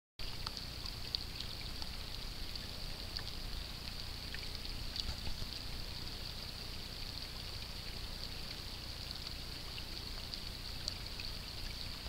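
Steady rain falling on a lake's surface: an even hiss of drops with scattered sharper ticks, over a low rumble.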